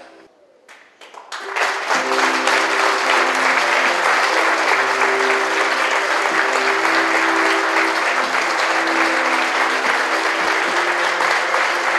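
Audience applauding: a few scattered claps, then a full, steady applause from about a second and a half in. Under the applause is the film's end-credits music, with sustained low tones.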